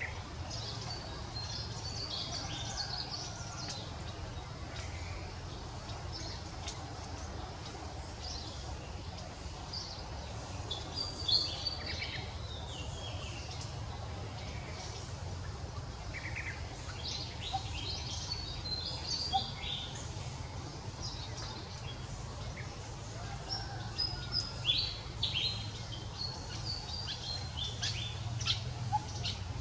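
Birds chirping and twittering on and off in short high calls, some sweeping quickly downward, over a steady low background rumble.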